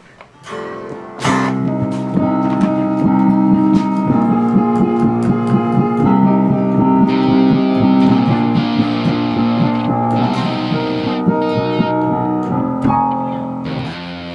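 Electric guitar and electronic keyboard playing together in loose, jam-like chords, with long held notes. It starts about a second in and drops away near the end.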